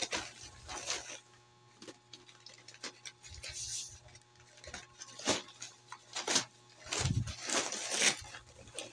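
Newspaper and plastic bag wrapping crinkling and rustling irregularly as a parcel is torn open and unwrapped by hand, with a few sharper crackles in the second half.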